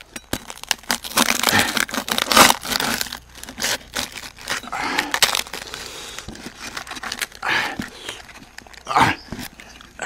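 A knife cutting and hands tearing through the crisp roasted skin and meat of a whole roasted goat: irregular crackling, crunching and tearing with many sharp clicks, the leaves beneath crinkling.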